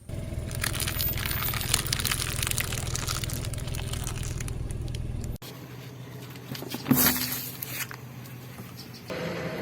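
A car tyre crushing objects: dense crackling and crunching over a steady low engine hum, which cuts off abruptly a little past halfway, followed by a quieter stretch with one louder crunch.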